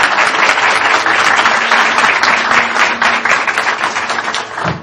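Audience applauding: dense, steady clapping that thins slightly near the end.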